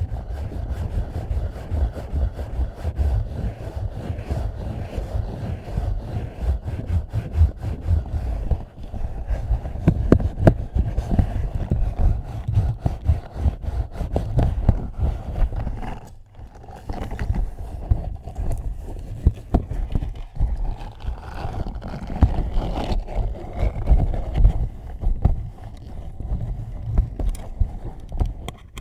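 Hands rubbing and scrubbing directly on a microphone: close handling noise, a dense low rumble full of small clicks and crackles, easing off briefly about 16 seconds in.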